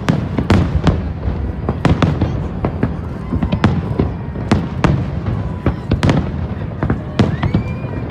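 Aerial fireworks display: shells bursting in a rapid, irregular string of booms and sharp cracks, several a second.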